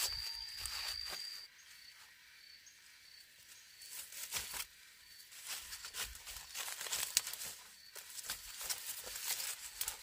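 Corn leaves and husks rustling and crackling as ears of corn are pushed into a woven basket, then footsteps through the corn rows and dry leaf litter with the loaded basket carried on the back; the crackling grows busier about four seconds in. A steady high tone cuts off about a second in and comes back as short high chirps.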